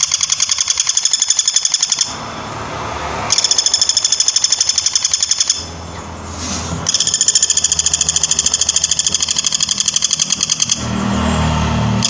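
Woodpecker giving its rapid, high, rattling call in three long runs, broken by short pauses about two seconds in, about five and a half seconds in and near the end.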